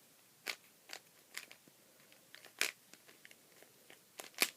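Plastic Rubik's Cube layers being turned by hand: an irregular run of short, sharp clicks and snaps. The cube is catching on its turns, which the solver calls getting stuck.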